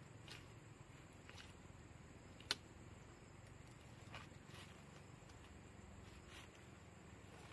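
Near silence with a few faint, short clicks and rustles of a roll of plastic mesh netting being handled against a wooden post, one sharper click about two and a half seconds in.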